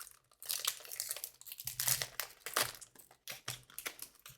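Crinkling of a trading card pack's foil wrapper as it is torn open and pulled off the cards, in a quick run of irregular crackles.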